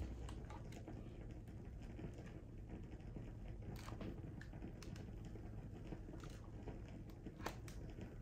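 Faint rustling of hair with scattered light clicks as a flat iron and comb are worked down sections of a straight wig, over a low steady hum.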